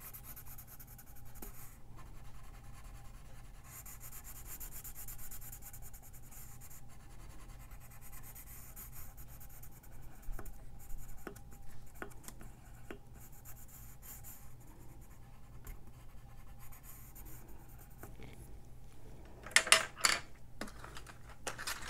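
Coloured pencil scratching back and forth on paper in runs of quick shading strokes, from an orange Crayola pencil. Near the end come a few sharp, loud clicks and knocks as the pencil is set down and the pencils are handled.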